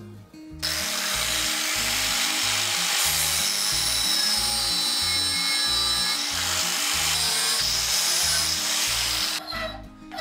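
Angle grinder cutting steel bar, starting about half a second in and running steadily with a high whine over the cutting hiss, then stopping near the end. After it, a few strokes of a hand file rasping on the steel held in a vise. Background music plays throughout.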